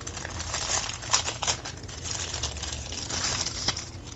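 Packaging crinkling and rustling as a charging cable is unwrapped by hand, with a few sharper crackles.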